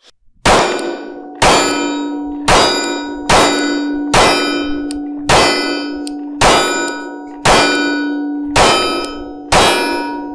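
Ten 9mm shots from a Glock 43X, fired steadily about a second apart, each hit setting a steel target ringing with a long metallic clang that carries on between shots. A full ten-round magazine of cheap Monarch ammunition cycles through without a malfunction.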